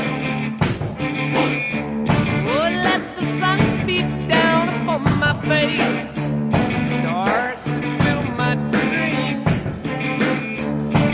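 Rock music with electric guitar over a steady beat and held chords, with bending lead-guitar lines.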